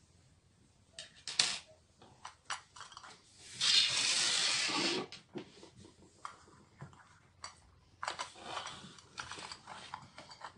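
Small plastic clicks and knocks from a hot glue gun's plastic housing being handled and worked apart, its screws already out. Near the middle comes a louder rustling noise about a second and a half long.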